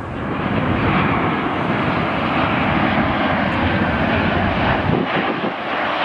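Jet engines of a Boeing 737-800 (CFM56 turbofans) flying past on landing approach with gear down, a steady rushing roar that swells in over the first second.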